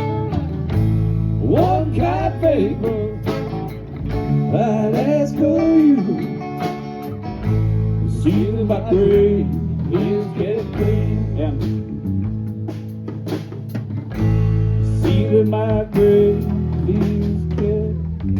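A live band playing a slow blues song, with guitars and held low bass notes under a lead part that bends up and down in pitch.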